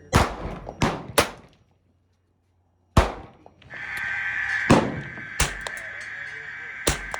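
Gunshots: three shots in quick succession, then after a short gap one more shot and three further spaced shots, over a steady high-pitched hum.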